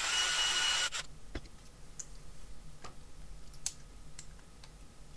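Cordless drill with a screwdriver bit runs for about a second, driving small M3 screws, then stops. After that come scattered small clicks as the screws are snugged by hand with a screwdriver.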